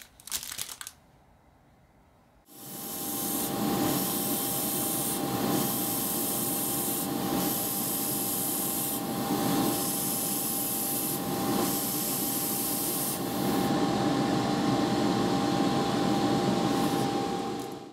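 Airbrush spraying thinned clear lacquer as a gloss top coat: a steady hiss of air and paint whose top end dips and returns every second or two, over a steady low hum. It starts about two and a half seconds in and stops just before the end.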